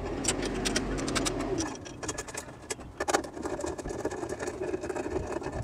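Battery hold-down clamp being fitted over a car's 12-volt battery and its nut run down with a ratchet and socket: scattered metallic clicks and taps. A low steady hum runs underneath.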